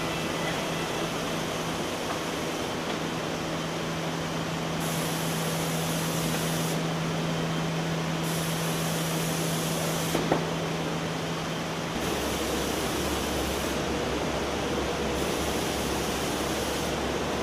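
Biesse Stream edge-banding machine running: a steady hiss of its motors and dust extraction over a steady hum. The hum shifts to a lower one about twelve seconds in, and there is one brief click shortly before.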